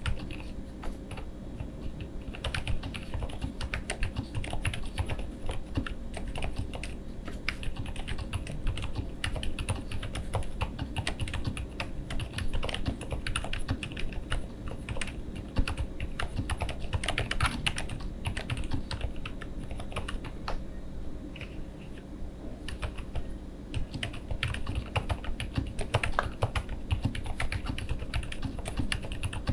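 Typing on a full-size QwertyKeys QK101 mechanical keyboard with lubed Lucy R5T switches, GMK Carbon R2 keycaps and full foam dampening: a steady run of quick, irregular keystrokes.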